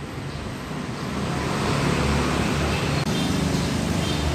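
Motor vehicle engine hum with road noise, growing louder over the first two seconds and then holding steady.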